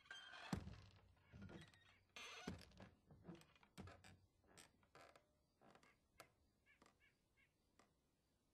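Wooden doors being moved, creaking, with a loud thunk about half a second in. A noisier creaking stretch follows around two to three seconds, then a string of small latch and hinge clicks that grow fainter.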